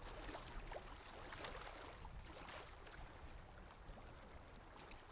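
Faint running water babbling and trickling, with small splashes and a low rumble underneath.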